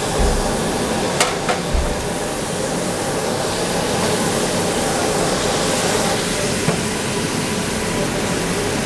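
Frying pan of chili crab in sauce cooking over a gas burner: a steady hiss, with two light knocks in the first two seconds.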